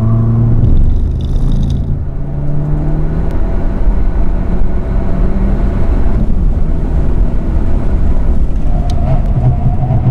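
Hyundai Avante Cup race car's engine heard from inside the cabin, pulling hard in third gear with its note rising in pitch as it revs from about 3,300 toward 6,000 rpm, over loud wind and tyre noise. Near the end the revs fall back as the driver brakes.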